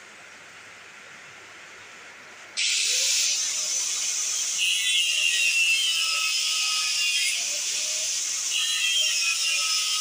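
Angle grinder cutting through the steel shell of a refrigerator compressor: a loud, harsh hiss of the disc biting the metal starts abruptly about two and a half seconds in, with a thin whine running through it.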